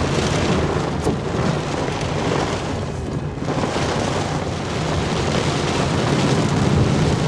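Tropical-storm rain and wind: a loud, steady rushing noise with a deep rumble underneath.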